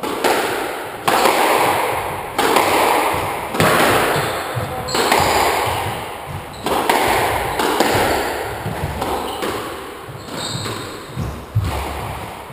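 Squash rally: a squash ball cracking off rackets and the court walls, each hit a sharp knock that rings on in the court's echo, coming every second or so.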